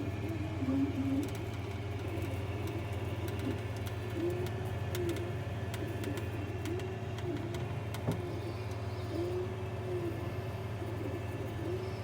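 3D printer at work: a steady low hum under a motor whine whose pitch keeps dipping and rising back, with scattered faint clicks.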